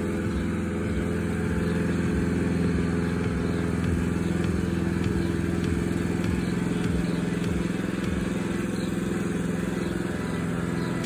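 Mountfield SP535 HW self-propelled petrol lawn mower's engine running steadily while cutting grass.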